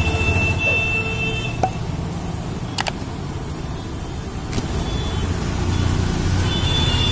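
Steady low rumble of street traffic. A thin high tone sounds over the first second or so, and a sharp click comes just under three seconds in.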